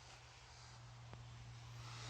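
Near silence: faint background hiss and a low steady hum, with one faint tick about a second in.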